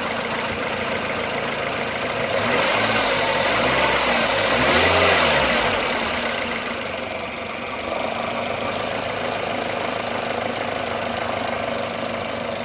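Toyota Vitz VVT-i petrol engine idling, revved up briefly from about two seconds in, peaking around five seconds, then dropping back to idle. The owner says this engine has a bad sound.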